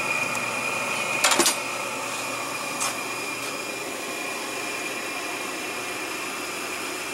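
Incinolet Carefree Deluxe electric incinerating toilet's blower motor running steadily, with a steady high whine. A brief cluster of knocks sounds about a second in.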